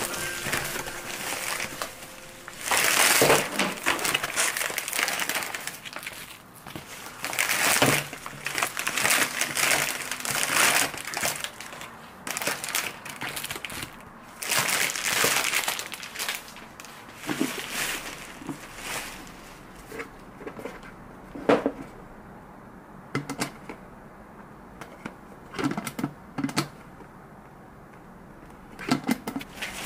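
Crinkling and rustling handling noises in irregular bursts, with scattered sharp clicks and knocks, the loudest knock a little after the middle.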